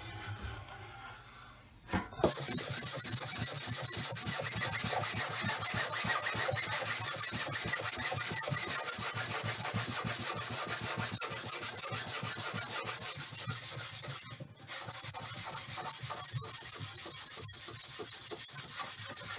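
Hand sander rubbing over dried drywall joint compound in quick back-and-forth strokes, about three a second. It starts about two seconds in and pauses briefly about fourteen seconds in.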